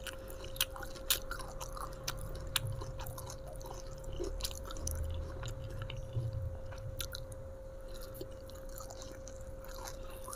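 A person chewing a mouthful of fried mujair fish with sambal close to the microphone, with scattered small mouth clicks and soft smacks.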